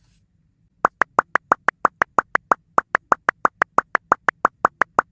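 Cartoon sound effect: a quick, even run of short pitched pops, about six a second, starting about a second in.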